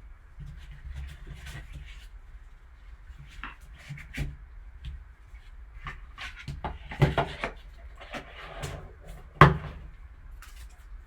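Hands opening and handling a trading card box and its packaging: scattered clicks, taps and rustles, with a sharper knock about nine and a half seconds in.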